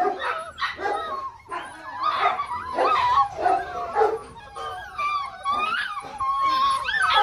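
A litter of six-week-old Belgian Malinois puppies whining and yipping over one another, many high, wavering cries overlapping without a break.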